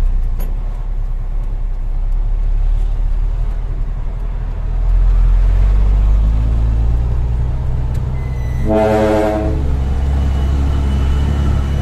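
Heavy dump truck's diesel engine running with a steady low rumble, getting louder about five seconds in as it pulls harder. Near the end a truck air horn sounds once, a single steady blast of about a second.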